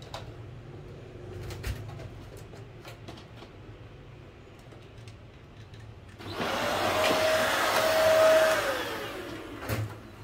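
Deerma DX900 handheld vacuum cleaner's motor starting abruptly about six seconds in, the moment it is plugged in with its power switch already on. It runs with a rushing whine for a couple of seconds, then the whine falls away as it is switched off and spins down. Light clicks of the plug and cord being handled come before it.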